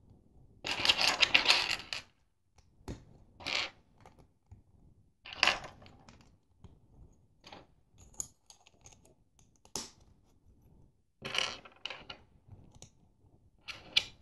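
Plastic LEGO bricks and plates being handled and pressed together: scattered sharp clicks and taps, with a second or so of denser rattling near the start.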